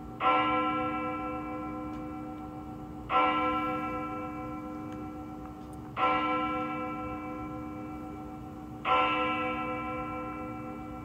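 A bell tolling four times, a stroke about every three seconds, each stroke ringing out and slowly fading before the next.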